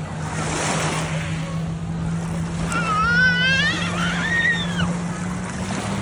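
Lake water lapping and sloshing around people wading in the shallows, over a steady low motorboat engine hum. About three seconds in, a small child's high, wavering voice cries out for about two seconds.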